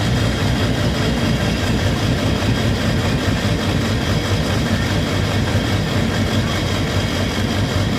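Ford 7.3 Powerstroke V8 turbodiesel idling roughly, running unevenly rather than smooth: the owner suspects one injector isn't firing all the time, perhaps from a bad wire.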